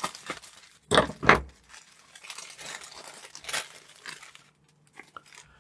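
Plastic packaging bag crinkling and rustling as it is handled and opened, with two louder crackles about a second in.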